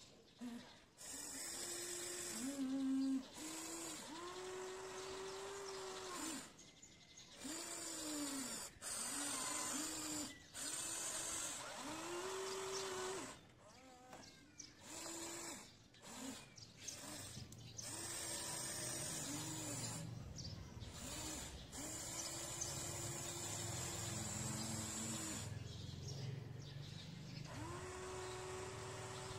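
Electric motors of a radio-controlled excavator whining in many short runs of half a second to two seconds as the boom, arm and bucket move, each whine sliding up in pitch as it starts and down as it stops. A low hum joins about halfway through.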